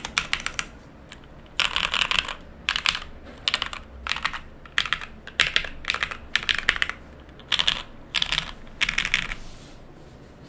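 Typing on a mechanical keyboard with lubed Cherry MX Black linear switches on an O-ring-mounted aluminium plate and GMK keycaps: keystrokes come in quick bursts with short pauses between them, and the typing stops about a second before the end.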